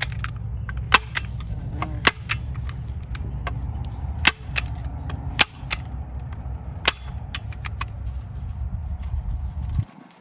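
Hand staple gun firing staples to fasten bird netting: a dozen or so sharp snaps at irregular intervals, with a low steady rumble underneath that stops near the end.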